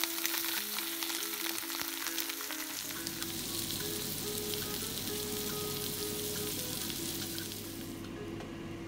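Flounder frying in a pan, the hot fat sizzling steadily with music playing underneath. The sizzling cuts off about a second before the end, leaving the music.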